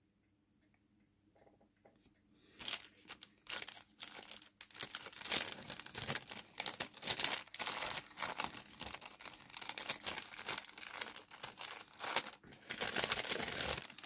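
Clear plastic bag crinkling and crackling as a plastic model-kit sprue is handled in it, in irregular bursts that start a couple of seconds in.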